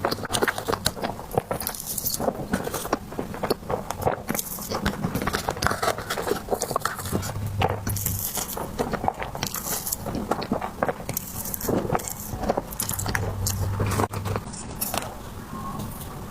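Close-miked eating of soft desserts: biting and chewing, a dense run of small clicks and crackles.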